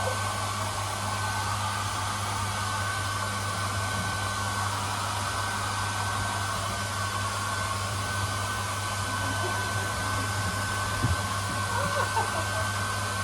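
Hand-held hair dryer running steadily: a constant blowing rush with a low hum and a thin, steady whine over it.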